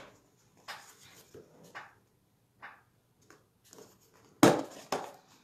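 Scattered light taps and rustles of craft supplies being handled on a desk, with one louder knock about four and a half seconds in as a plastic embossing-powder tub is handled.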